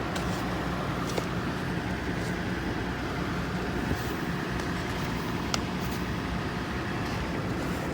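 Steady low hum of a vehicle engine running, with a few faint scrapes or ticks as ice is cleared off the car.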